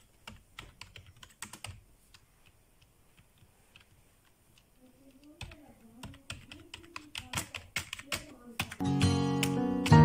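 Fingers typing on a Microsoft computer keyboard: irregular key clicks, faint at first and coming thicker after about five seconds. Near the end, loud music comes in over the typing.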